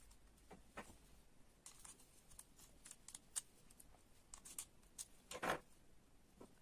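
Faint, irregular clicks of small kit parts being handled, with a louder, longer handling noise about five and a half seconds in.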